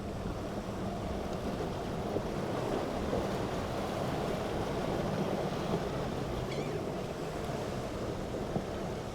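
Waves and surf washing with wind buffeting the microphone, over a low steady engine hum from a boat.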